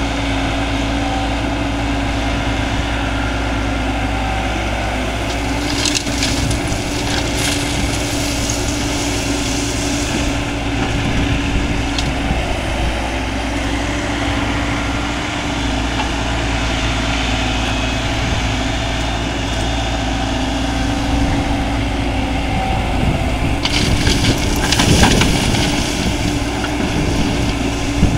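JCB tracked excavator's diesel engine running steadily under working load, with a constant low drone. Louder rushing, hissing noise comes in about six seconds in and again near the end, as the machine works the crushed-stone heap and loads the tipper truck.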